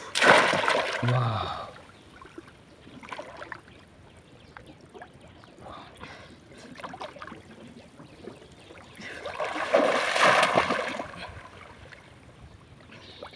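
Pond water splashing as a bamboo fish trap is plunged and worked through it by a wading man. There is a loud splash at the start and a second, longer spell of splashing about ten seconds in, with quieter lapping water between.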